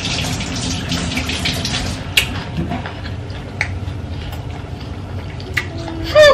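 Water running from a tap and splashing as hands are washed under it, stronger at first, with a few sharp clicks.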